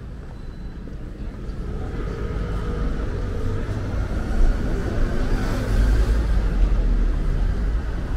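Street traffic: a motor vehicle's low engine rumble growing louder over the first few seconds and loudest past the middle, as it passes close by.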